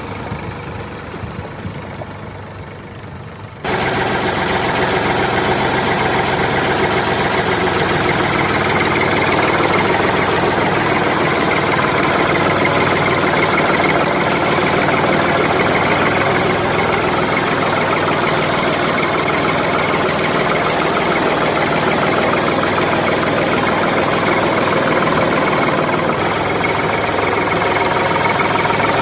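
Small engine of a miniature DIY tractor-type machine running steadily. A quieter, fading run is cut off abruptly a few seconds in by a louder, steady run that holds to the end.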